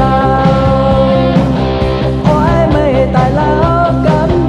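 A rock-style song playing: a full band backing with a held, bending melody line over it.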